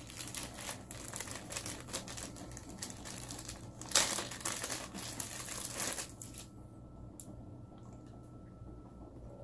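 Clear plastic sandwich bag crinkling as it is handled, opened and the sandwich pulled out. The crinkling is loudest about four seconds in and stops about six seconds in, leaving only a few faint clicks.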